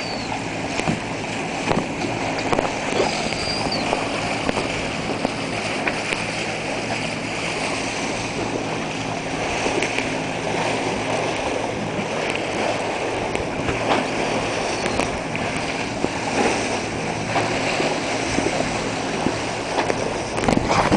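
Water rushing along a sailing catamaran's hulls and wind on the microphone as it moves under way, over a low steady hum. A few faint short high whistles come through, about three seconds in and again midway, from a man whistling to dolphins at the bow.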